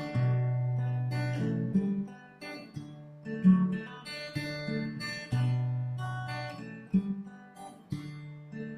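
Acoustic guitar playing a slow introduction to a meditative hymn, chords struck and left ringing, changing about every one and a half to two seconds.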